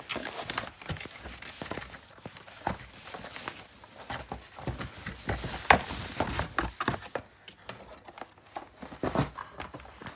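Handling noises of a newly opened keyboard and mouse box: irregular knocks, taps and rustles of the packaging being moved about, busiest in the first seven seconds and sparser after.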